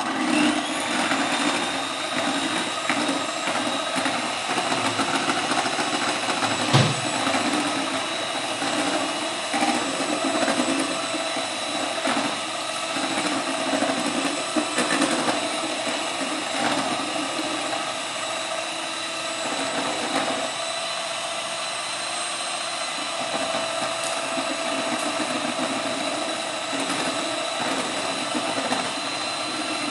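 Small two-beater electric hand mixer running steadily, whipping egg whites and sugar into marshmallow in a stainless steel pot. It starts right at the beginning, its whine settling to a steady pitch, with a sharp knock about seven seconds in.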